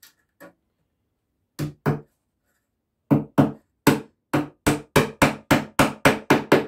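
Claw hammer driving small nails to tack a thin steel runner onto a wooden beehive box. A couple of light taps, then two blows, then a quick run of about a dozen blows, three to four a second.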